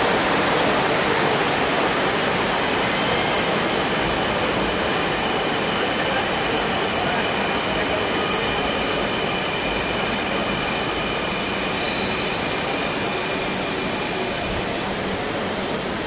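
Dhaka Metro Rail train pulling in and braking to a stop: a steady rush of wheels on rail, with a high-pitched squeal that sets in a few seconds in and grows into several wavering tones.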